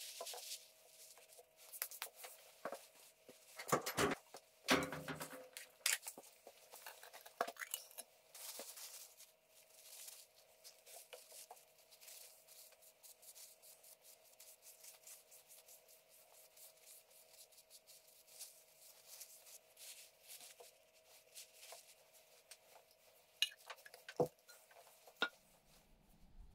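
Paper towel and cloth rustling and rubbing as a draw knife is wiped down and finish is rubbed onto its wooden handle, with scattered small clicks and a few louder knocks as the metal tool is handled. A faint steady hum sits underneath.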